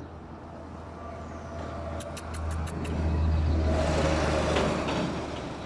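A car passing by: the engine and tyre noise build up, are loudest about three to four seconds in, then fade away.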